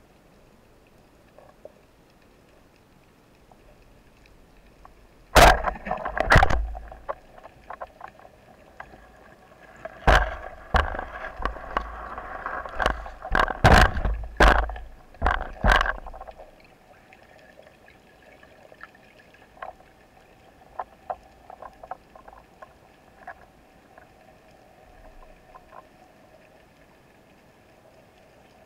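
Speargun fired underwater: a sharp, very loud crack about five seconds in, with a second one just after. Then comes a burst of knocks and rushing water lasting several seconds, which fades to faint scattered clicks over a steady faint hum.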